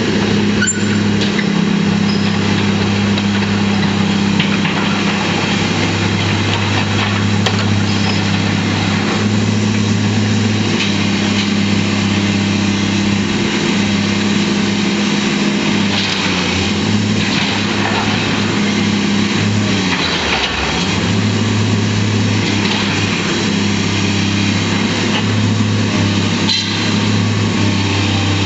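Hydraulic excavator's diesel engine running steadily under load while it works at the base of a steel tower. The engine note dips and picks up again about two-thirds of the way through, with a few faint knocks.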